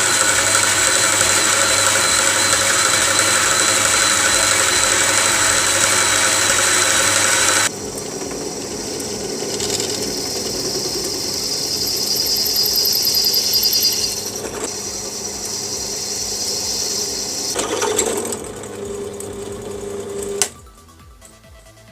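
Electric power tools cutting and drilling aluminium parts. One small motor runs loud and steady for about eight seconds, then a quieter machine runs unevenly and stops suddenly near the end.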